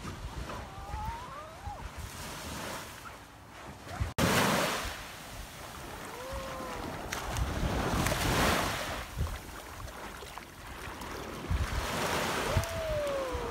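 Small waves washing in and out on a sandy shore, the surf swelling and fading, with wind buffeting the microphone. The sound breaks off sharply about four seconds in and picks up again. A few faint short falling tones come now and then.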